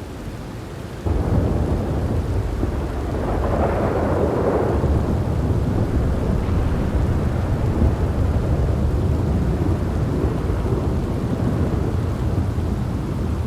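Thunderstorm: rain falling steadily under a deep rolling thunder rumble that comes in suddenly about a second in, swells to its loudest a few seconds later, then keeps rumbling.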